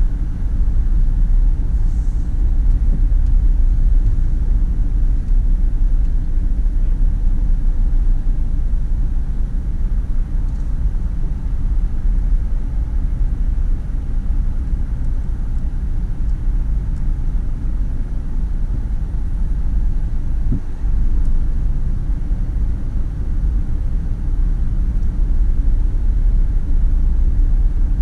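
Car driving along city streets: a steady low rumble of road and engine noise.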